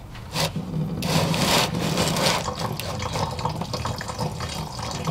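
Engine coolant splashing out of a Toyota Camry's radiator through the loosened petcock into a drain pan. A short knock comes just under half a second in, then a steady stream of pouring starts about a second in.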